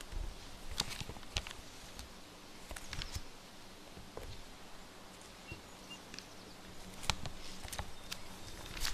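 Quiet room tone with scattered light clicks and rustles of a paper map being handled on a table. Two faint short high chirps come about the middle.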